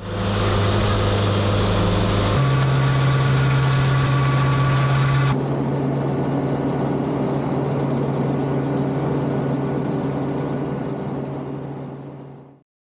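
Engines running steadily in three short clips cut together, the pitch and character changing abruptly twice, then fading out near the end.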